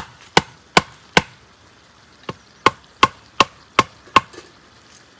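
Wooden stake being driven into the ground by knocking its top with a thick wooden stick used as a mallet: sharp wood-on-wood knocks at about two and a half a second. Four strikes, a pause of about a second, then six more.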